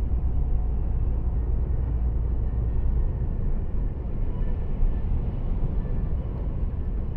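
Lorry cab interior at motorway speed: a steady low rumble of the engine and tyres, with the hiss of tyres on the wet road.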